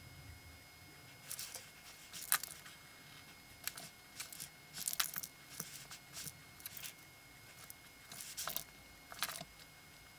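Paint marker nib scratching across paper in a series of short, irregular strokes with pauses between, as lines of a drawing are put down.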